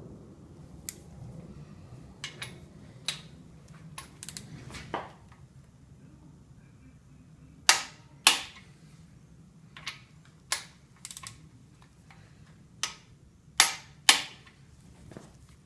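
Click-type torque wrench clicking sharply as bolts in a 5.7L HEMI's bottom end reach set torque, with a scatter of lighter clicks. The loudest come as two pairs of clicks about half a second apart, one pair about halfway through and one near the end.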